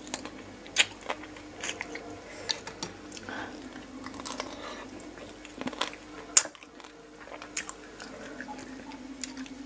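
Close-miked eating of raw fish-sauce-pickled blue swimming crab: wet mouth and sucking sounds as the meat is drawn from the shell, broken by sharp clicks and crunches of shell between the teeth. The sharpest click comes a little past the middle. A faint steady hum runs underneath.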